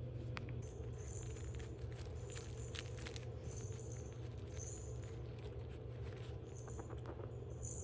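Faint crinkling and rustling of a shiny foil gift bow being nosed and mouthed by a Shih Tzu puppy, in short scattered bursts with small clicks, over a steady low hum.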